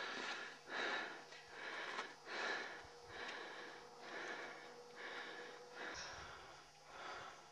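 Heavy, rhythmic breathing of a climber close to the microphone, about one breath a second: out of breath on the steep ascent.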